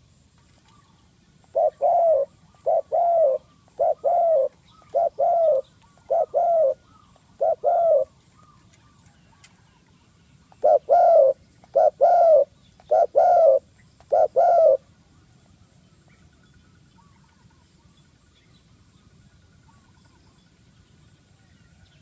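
Spotted dove cooing loudly in two bouts: about six phrases, a pause of a couple of seconds, then four more.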